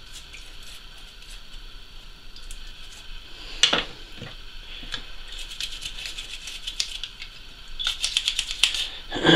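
Toothbrush scrubbing the pump's rubber suction cups in runs of quick scratchy strokes, busiest in the second half. A single sharp knock a few seconds in is the loudest sound.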